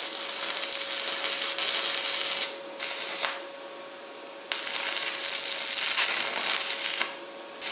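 Stick-welding arc crackling and sizzling in three runs: about two and a half seconds, a short half-second burst, then nearly three seconds more. A faint steady hum sits underneath.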